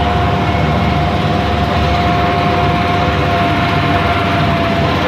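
A WWII duck boat's 272-cubic-inch six-cylinder engine running steadily, a low drone with a steady high whine on top, heard from aboard as the boat moves on the water. The whine drops away near the end.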